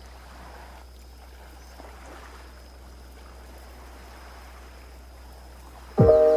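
Soft, steady wash of sea water. About six seconds in, a loud bell-like chime with several held tones comes in.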